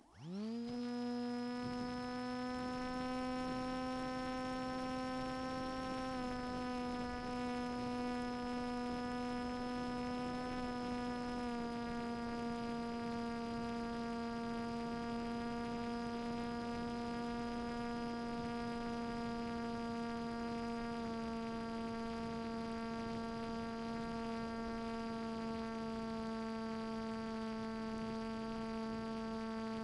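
Brushless outrunner electric motor and propeller of a flying wing spinning up quickly to throttle and then holding a steady buzzing whine, with a few slight steps down in pitch along the way.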